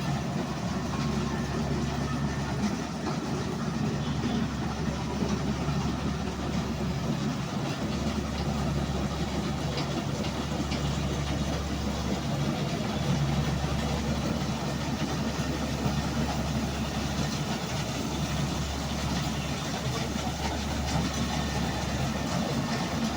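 An engine running steadily at a constant speed, with an even low hum and a dense mechanical clatter above it.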